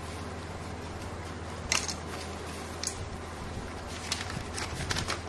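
Handling noise: a sharp click about a third of the way in, another a second later, then a run of short clicks and crackles near the end, over a steady low hum.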